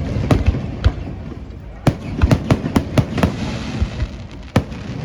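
Fireworks exploding overhead: a string of sharp bangs over a low rumble, coming thick and fast in a rapid cluster about two seconds in, then thinning out, with one loud single report near the end.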